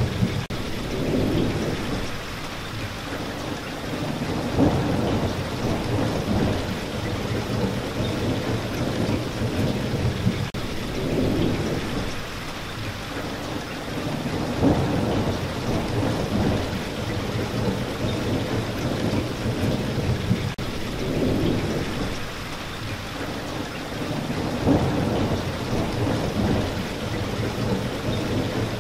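Steady heavy rain falling, with low rolls of thunder that swell and fade several times.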